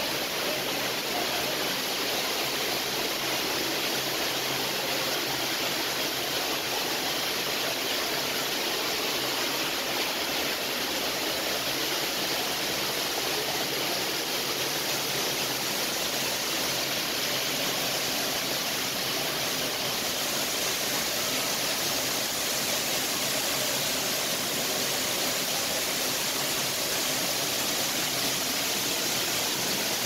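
Steady, unbroken rush of falling water, like a waterfall, with no change or break.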